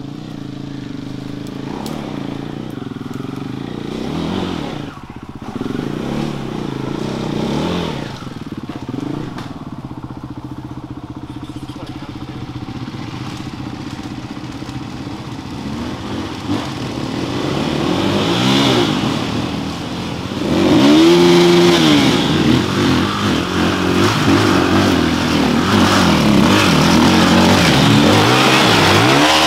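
Dirt bike engines running on a muddy climb, louder about two-thirds of the way through as a bike comes close, its revs rising and falling repeatedly as the rider works it up the slope.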